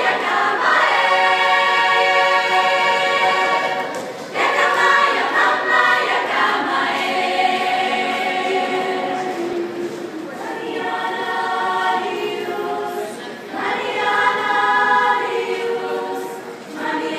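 A women's choir singing a cappella, several voices holding sustained notes together in phrases with brief breaks between them.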